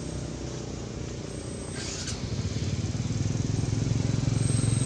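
A motor vehicle's engine running with a rapid low throb, getting louder over the second half.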